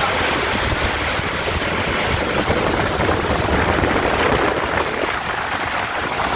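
Heavy storm: a steady, loud roar of pouring rain driven by strong wind, with wind gusting and rumbling on the microphone.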